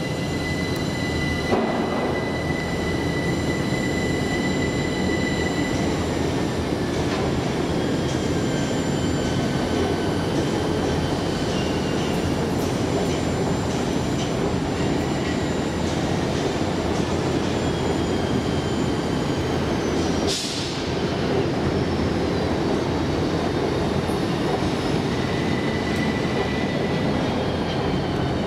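Passenger train running slowly through a station: a steady rumble of wheels and running gear with high, drawn-out wheel-squeal tones that slowly slide in pitch.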